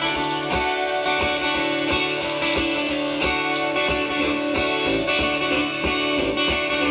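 A band playing a song's instrumental intro: strummed guitars over a steady beat, before the vocals come in.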